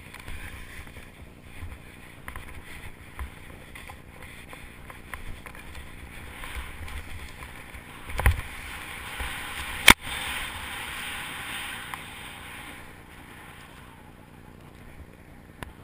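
Skis sliding through fresh powder snow: a steady hiss that swells in the middle of the run. A low knock about eight seconds in and a sharp click about ten seconds in.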